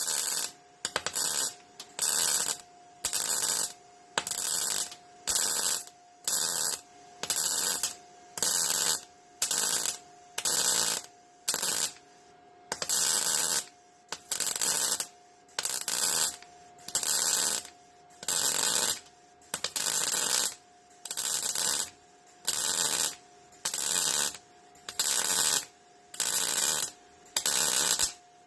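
MIG welder stitch-welding Triumph TR7 sheet metal: short crackling bursts of arc, each about half a second, repeating just under once a second. A steady hum runs underneath.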